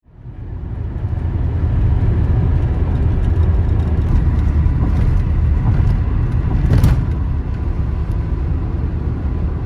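Van driving on the road, heard from inside: a steady low rumble of engine and road noise that fades in at the start, with one short knock about seven seconds in, cutting off abruptly near the end.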